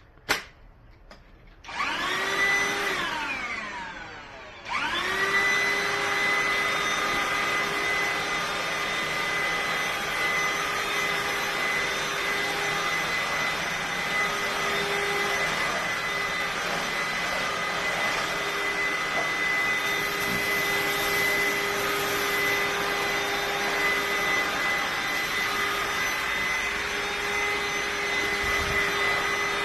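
TengXcel cordless handheld vacuum cleaner: a click as it is switched, then its motor starts with a whine, winds down with falling pitch, starts again about five seconds in and runs steadily with a high whine.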